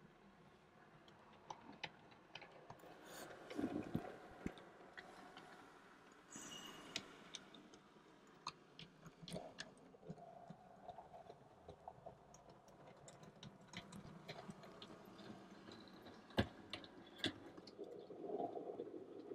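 Model railway diesel locomotive running along the track: faint, irregular clicks and ticks of its wheels over rail joints and points, with a soft running rumble that swells briefly about three seconds in and again near the end.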